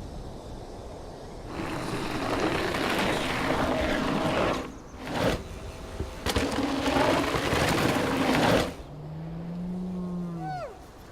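Mountain bike tyres rolling and skidding over dirt and gravel in several short edited bursts, with sharp cuts between them. Near the end a short pitched tone bends downward and fades.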